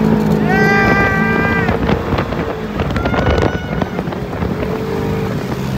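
A vehicle driving over desert sand dunes, with its engine hum and wind noise on the microphone. A high-pitched scream is held for about a second, starting half a second in, and another scream starts near the end, with a few knocks from jolts in between.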